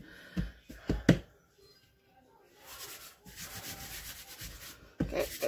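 Hands rubbing and patting over rolled-out pie dough on a floured countertop: a few light knocks in the first second or so, then a longer dry rubbing sound, with a sharper knock near the end.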